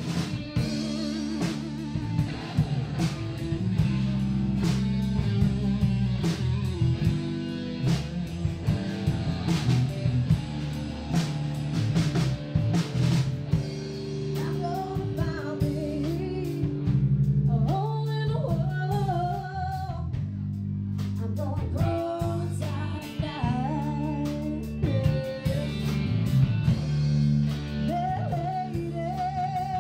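Live band playing a song: drum kit, electric and acoustic guitars and bass, with a woman singing lead. The singing is clearest in the second half.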